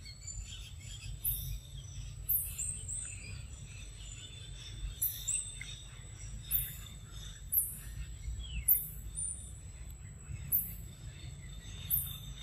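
Tropical forest ambience: a very high-pitched short call repeating about once a second over a steady high whine, with scattered bird chirps and a low rumble of wind on the microphone.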